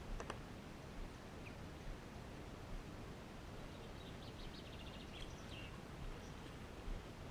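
Steady low outdoor background noise, with a short run of quick, high chirps from a small bird about four seconds in.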